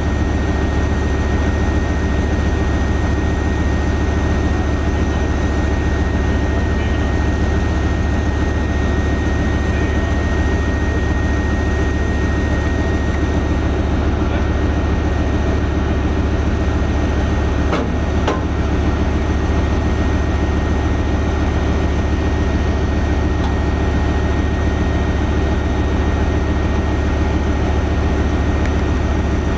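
Heavy diesel engine idling steadily, a deep even rumble with a thin steady whine above it; a single knock about eighteen seconds in.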